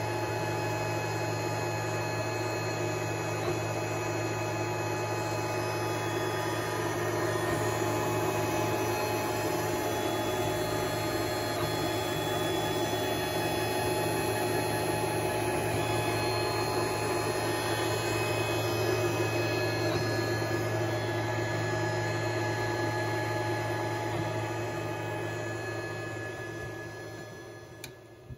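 Creality 3D printer running mid-print, its fans and motors giving a steady hum with a whine of several held tones above it. The sound fades away near the end.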